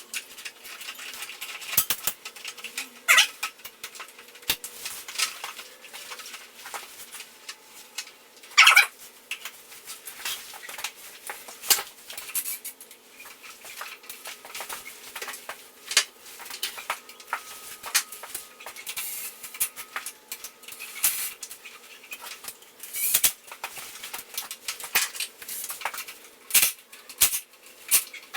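Irregular metallic clinks, clicks and knocks, as of hand tools and parts being handled while a small dirt bike is taken apart, over a faint steady hum.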